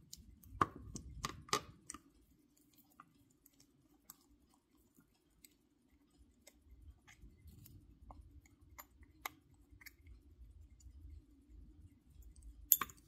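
Small metallic clicks and taps of a wristwatch being handled as its case back is worked loose, with a few louder clicks early and the loudest pair near the end as the steel back comes off the case.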